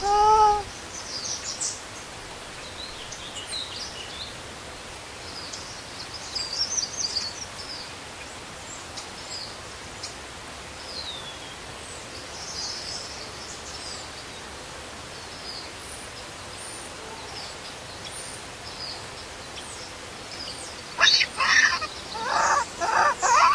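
Outdoor background with small birds chirping high and thin at scattered moments. A baby macaque gives one short pitched squeal at the very start, and near the end breaks into a run of loud, sharp cries.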